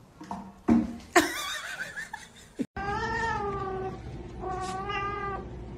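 Cats meowing: a short, high, wavering cry in the first couple of seconds, then two long, drawn-out meows, the first over a second long and the second shorter.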